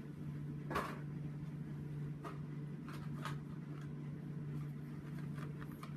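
A steady low hum with a few faint clicks and crinkles of carded Hot Wheels die-cast cars being handled.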